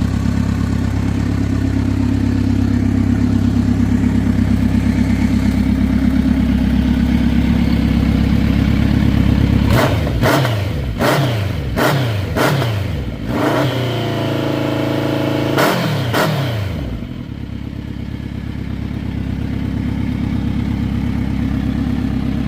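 2023 Kawasaki Z900RS inline-four through a Delkevic aftermarket exhaust, idling steadily, then blipped in about six quick revs and held at higher revs for a couple of seconds, before dropping back to a steady idle.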